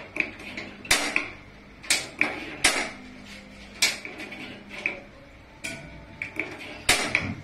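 Gas stove igniter clicking: about seven sharp clicks, irregularly spaced roughly a second apart, as the burner is lit.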